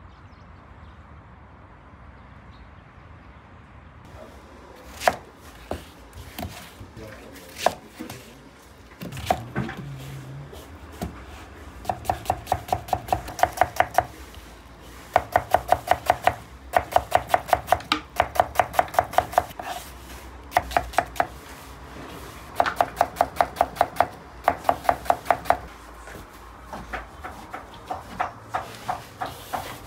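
Knife chopping onions on a wooden cutting board, in quick runs of about six strokes a second with short pauses between them. Before the runs there are only a few single knocks, and near the end softer, irregular knocks.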